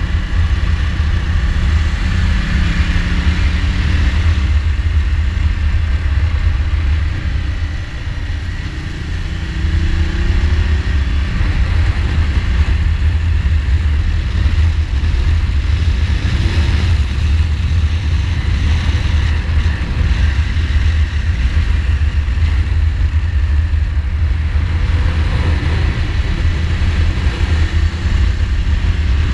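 2015 Ducati Multistrada's L-twin engine running under a heavy, steady wind rumble on the camera microphone while riding a winding road. The engine note rises in pitch as it pulls through the gears, about two seconds in and again around ten seconds in, with a brief easing of the throttle just before.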